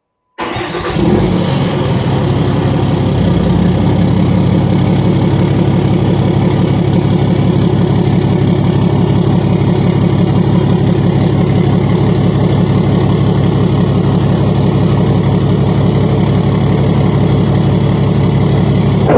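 Ram pickup's Cummins inline-six turbodiesel comes in abruptly about half a second in and then runs steadily at idle.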